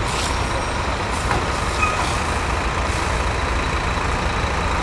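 Truck engine running steadily with a low rumble, under the even hiss of a high-pressure hose spraying water over the truck's load.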